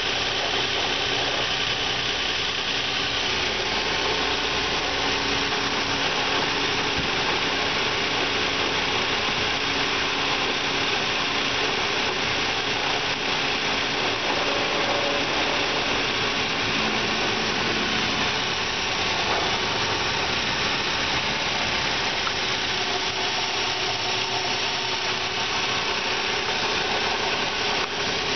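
2005 Nissan Altima's 3.5-litre V6 (VQ35DE) engine idling steadily, a used engine that the seller rates as tested good.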